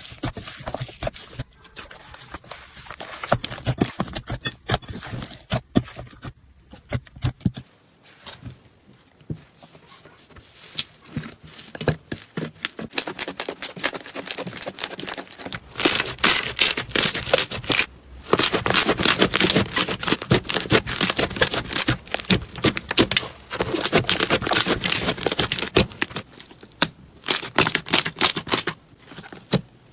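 Slime being squeezed, poked and stretched by hand, a dense run of sticky crackling and popping clicks, in several short clips one after another. It is loudest in the second half.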